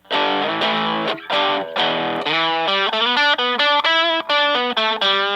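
Electric guitar (Fender Stratocaster) played through a PineTop Distortion pedal into a Fender Blues Junior amp, with the pedal's gain at 12 o'clock for a mild overdrive-type tone. It opens with strummed chords, then about two seconds in moves to a quick run of single notes.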